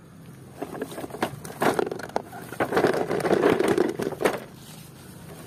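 Handling noise: a cardboard toy box rustling and knocking as it is set into a plastic basket. The knocks are busiest between about two and a half and four and a half seconds in.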